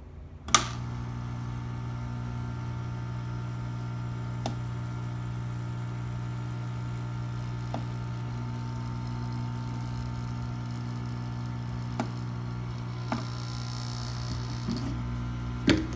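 Hot air gun switched on with a click about half a second in, then its fan running with a steady hum, a few faint ticks over it. It is heating a partly glued laptop DC jack to soften the glue.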